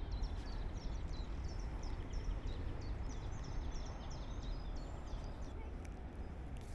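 Small birds singing, a busy run of short high chirps and trills, over a steady low rumble.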